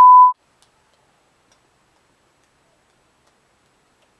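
A steady electronic beep tone, edited in between outtake clips, cuts off about a third of a second in and is followed by near-total silence.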